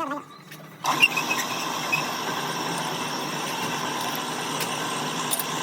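An engine starts up abruptly about a second in and then runs steadily.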